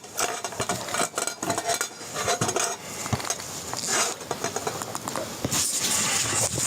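Irregular clattering, clicking and rustling close to the microphone, as of things being handled and knocked together.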